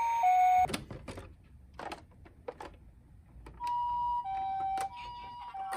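Toy ambulance minicar's electronic two-tone siren, the Japanese ambulance "pee-poh", alternating between a high and a low note, cutting off just under a second in. A few light clicks and knocks of the plastic toy being handled follow, then the two-tone siren starts again about three and a half seconds in.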